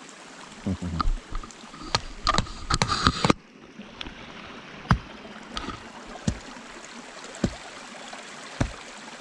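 Small woodland stream running steadily. From about a second in to about three seconds in there is a close run of knocks and rustles, and after that a few single clicks.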